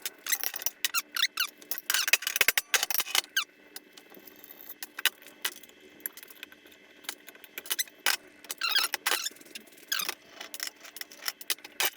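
Irregular metallic clinks, knocks and squeaks of a socket, extension and motorcycle parts being worked on a workbench, busiest in the first few seconds and again later.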